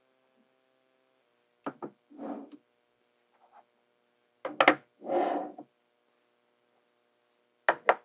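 Small magnetic balls clicking together, three times: each time a pair of sharp snaps followed by about half a second of rattling and scraping as the balls settle against one another.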